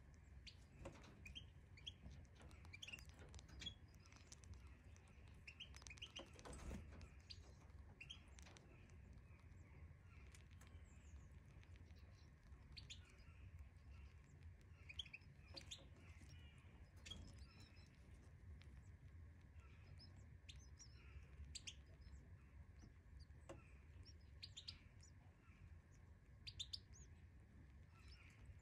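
Faint, scattered short high chirps of European goldfinches, over a low steady hum.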